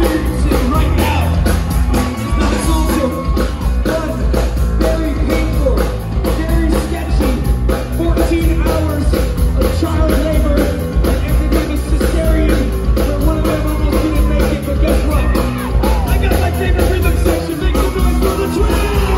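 Loud live ska-punk band performance: electric bass, drums and guitar driving an even beat, with a lead singer.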